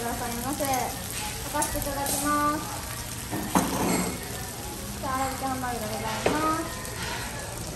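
Steak and fries sizzling on hot cast-iron skillet plates, a steady hiss with a brief louder burst about halfway through.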